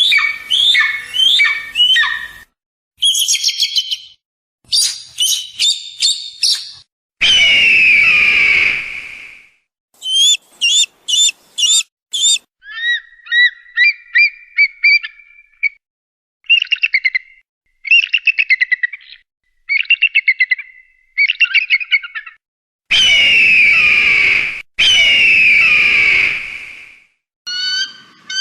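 A string of separate bird-call clips spliced together with short silent gaps: quick series of chirps and trills, and a few longer whistled calls lasting a couple of seconds each, two of them back to back near the end.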